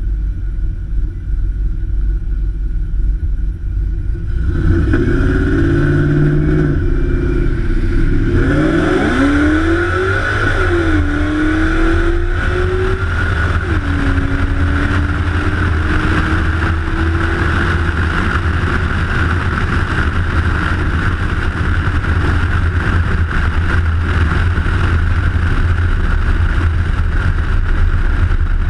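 V8 engine at full throttle in a roll race, its pitch climbing steeply, dropping sharply twice as it shifts up, then rising slowly, over a steady low rumble of road and wind.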